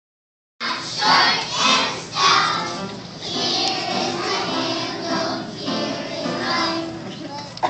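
A group of young children singing together as a choir, starting about half a second in.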